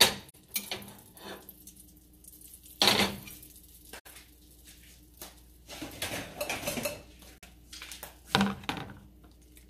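Kitchen utensil clinking and knocking against a bowl and pan: several separate knocks, then a quick run of clattering about six seconds in, and another knock near the end.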